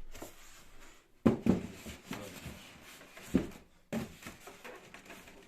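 A few sharp knocks with scraping and rubbing between them as the parts of a foam incubator and its lid are handled. The loudest knocks come a little over a second in and again near the middle.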